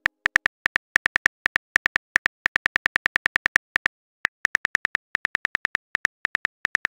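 Phone keyboard key clicks from a texting app as a message is typed: a quick, uneven run of short clicks, with a brief pause about four seconds in.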